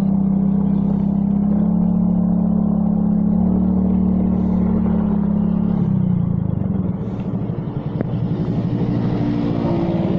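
Motorcycle engine running steadily at speed. About six seconds in the note drops and wavers as the bike eases off, then settles back to a steady note near the end.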